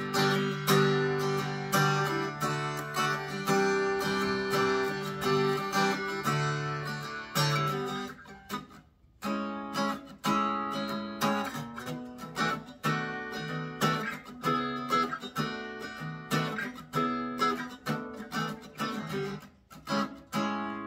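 Fender Acoustasonic Player Telecaster played unplugged, with no amplifier: chords strummed with a pick, with a short break about nine seconds in.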